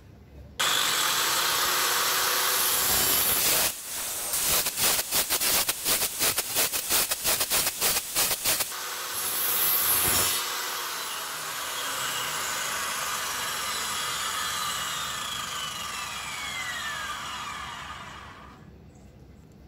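Circular saw, mounted in a homemade sled, nibbling out a lap joint in a board. The saw starts suddenly and runs loud and steady, then cuts in a rapid series of short bursts, about three a second. After a last loud cut, the saw winds down with a falling whine for several seconds.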